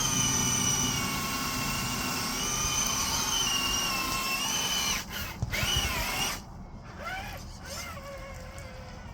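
Small electric motor of an RC crawler whining steadily. About five seconds in it swoops up and down in pitch a few times as the throttle changes, then runs quieter.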